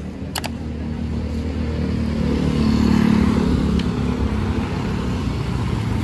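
Motor vehicle engine running steadily with road noise, getting louder about two to three seconds in, with a short click near the start.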